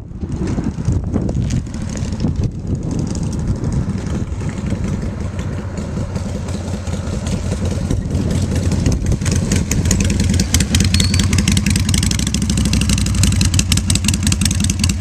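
Hardtail Harley-Davidson Sportster chopper's V-twin engine running as the bike rides up, growing louder from about halfway in, then idling close by with a rapid firing beat near the end.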